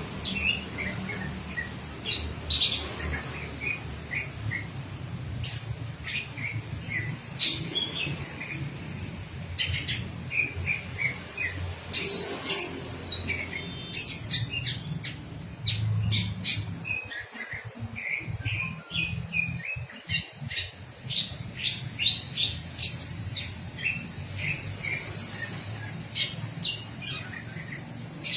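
Songbirds chirping and calling throughout, in many short notes and quick descending runs of chirps, with a few sharper squawks. A low steady hum sits underneath.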